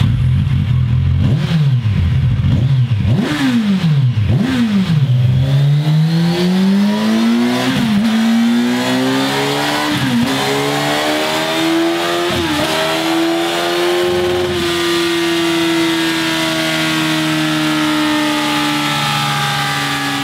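Kawasaki Ninja 1000SX inline-four running through a Scorpion Serket Parallel slip-on exhaust on a dyno. It gives a few sharp throttle blips, then makes a long steady climb in revs broken by three brief dips. After that it holds high revs and slowly eases off.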